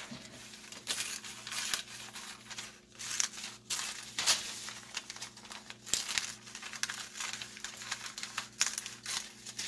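Scissors snipping through a thin paper sale flyer in irregular cuts, with the paper rustling and crinkling as it is turned.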